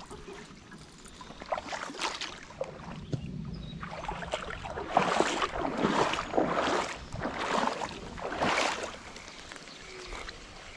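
Someone wading through a shallow creek pool, legs swishing and sloshing through the water in a run of strides that grows louder a few seconds in.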